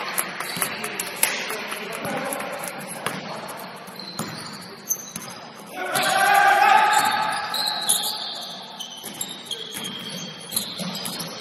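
A basketball bouncing on a gym floor during play, with short high squeaks and players' voices.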